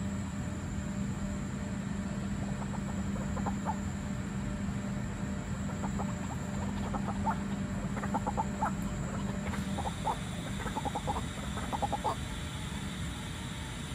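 White-breasted waterhen calling: quick groups of short notes, one group a few seconds in and a run of bursts in the second half, over a steady low hum.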